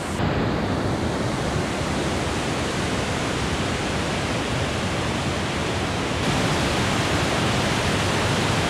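Waterfall and white-water stream rushing at close range: a loud, steady, even noise with no pauses. It grows slightly brighter about six seconds in.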